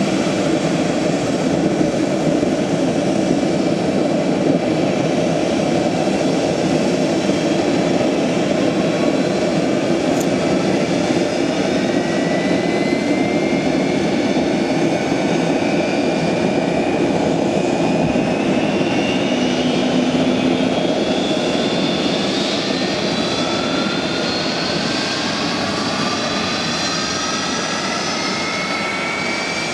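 Boeing 737-200 running on the ground with a loud, steady jet roar. From about twelve seconds in, several whines climb slowly in pitch as a Pratt & Whitney JT8D turbofan spools up during engine start.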